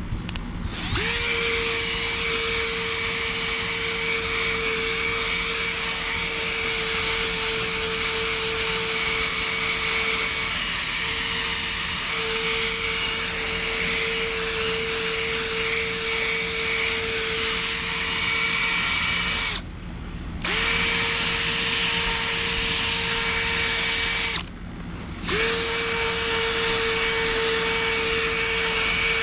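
A small high-speed motor running steadily with a whine and hiss, cutting out twice for about a second and starting up again each time.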